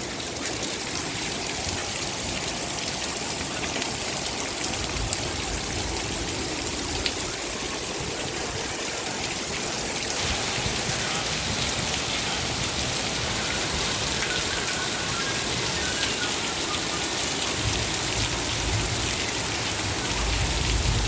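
Steady rain falling, an even hiss of drops hitting surfaces, growing a little louder about halfway through. A low rumble comes in near the end.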